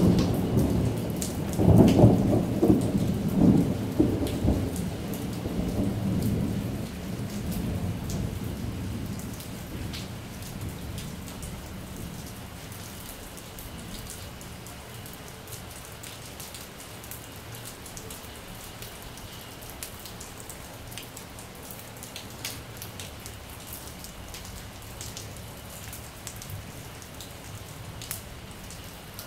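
Thunder rumbling, loudest at the start with a second roll about two seconds in, then dying away over about ten seconds, over steady heavy rain falling on a tiled rooftop terrace.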